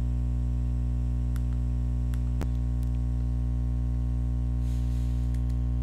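Steady electrical mains hum with a stack of low, even tones on the recording, and a single sharp click about two and a half seconds in.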